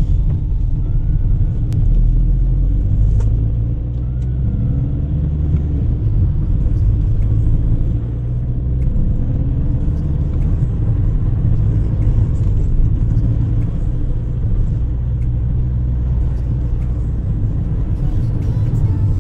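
Steady low rumble of a VW Touran's engine and tyres heard from inside the cabin as the car drives slowly on a wet road.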